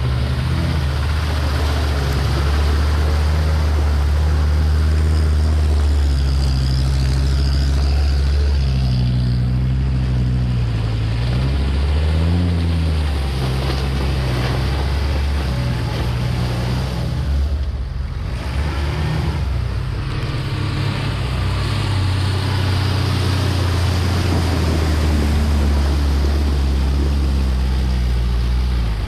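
Off-road vehicle's engine running hard under load, its revs rising and falling again and again, with a short let-off about two-thirds of the way through.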